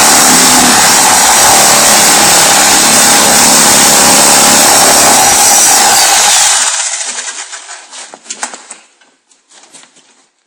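Power tool running loud and steady, switched off abruptly about two-thirds in, followed by a few light clicks and knocks.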